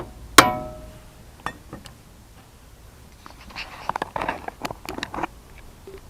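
A metal tool struck once with a short ringing clang, followed by two light clicks and, later on, a run of clattering knocks as metal tools are handled.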